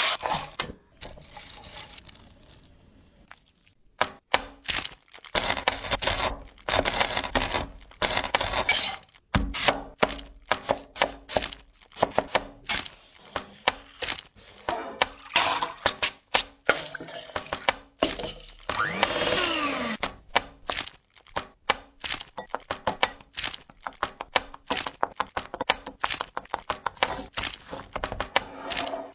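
Food preparation in a kitchen: a long run of sharp knocks, cracks and clatters in quick succession, like chopping and handling food and utensils. About two-thirds of the way through there is a brief sweeping tone.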